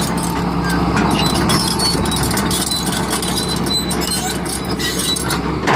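John Deere excavator's diesel engine running steadily, with scattered clicks from the machine.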